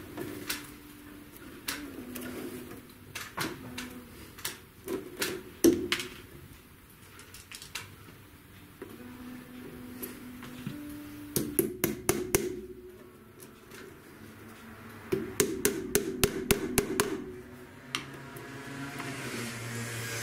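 Upholsterer's hammer driving tacks into the wooden frame of an antique Voltaire armchair while the springs are tied down. Scattered single taps come first, then a quick run of about six blows a little past halfway and a longer run of about ten blows near the end.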